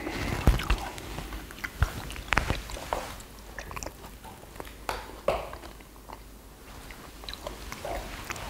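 Several people eating sundae gukbap: chewing and eating the soup, with sharp clicks of spoons and chopsticks against earthenware bowls scattered throughout.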